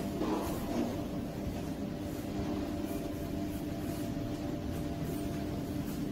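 Steady hum of a passenger lift, several constant tones over a low drone from its drive and fan, heard from inside the stainless-steel car.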